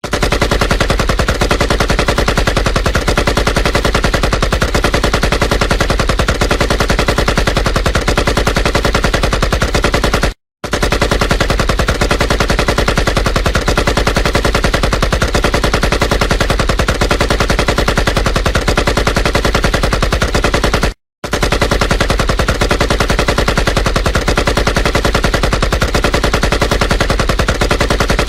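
AK-47 rifle firing on full auto in a continuous stream of rapid shots, broken twice by a brief silence, about ten and twenty-one seconds in.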